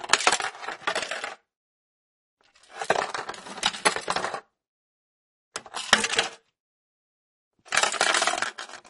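A small ball rattling and rolling inside a rotating plastic box, in four separate bursts of quick clicks and clatter, each a second or two long with silence between.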